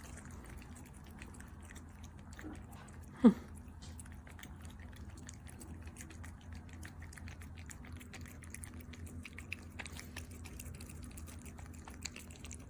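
Two Persian cats licking liquid treats from squeeze tubes, with faint quick wet licking and smacking ticks. One short sound falls sharply in pitch about three seconds in.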